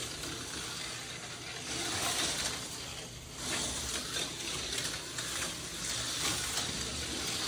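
TYCO HO-scale slot cars running on the plastic track: a hissing whirr of the small cars and their motors that swells and fades several times.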